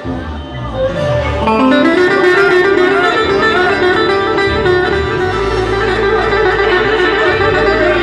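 Live Turkish folk music: a bağlama (saz) playing an instrumental passage between sung lines. A low bass note comes in about five seconds in.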